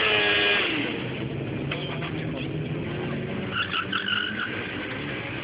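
Stunt motorcycle engine at a distance, its revs dropping off after a smoky burnout, then running low and steady. A brief high-pitched squeal comes near four seconds in.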